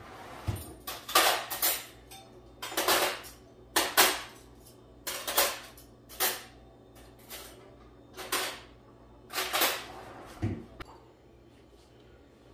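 Metal cutlery and dishes clattering in a run of sharp clinks, a dozen or so spread irregularly about a second apart, as silverware is handled at a kitchen drawer with a wooden utensil organizer.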